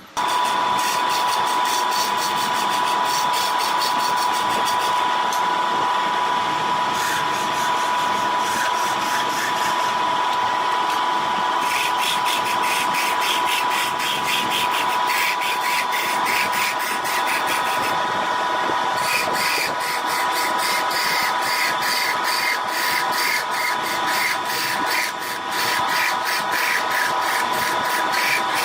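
Wood lathe running with a steady high whine, while a turning tool cuts the spinning wood blank in stretches, adding a rough scraping noise and rapid ticking.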